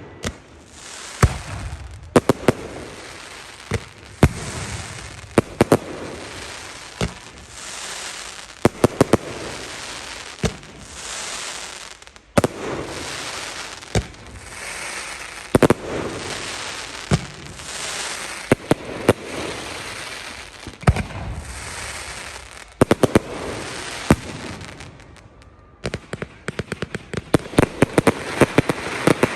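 Fireworks display: sharp bangs of bursting shells every second or two, with crackling and hissing between them, and a rapid run of many bangs near the end.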